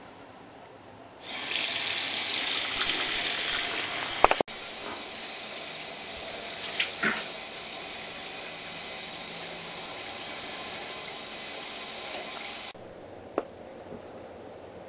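Bathroom sink faucet turned on, water gushing into the basin about a second in. After a few seconds the flow goes on softer and steady, with a few small clicks, then cuts off abruptly near the end.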